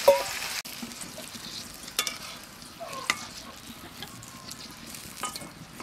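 Metal spatula stirring chicken pieces in a simmering, oily gravy in an aluminium kadai, with sharp scrapes and clinks against the pan every second or so over a low sizzle. The gravy has just been thinned with a little water.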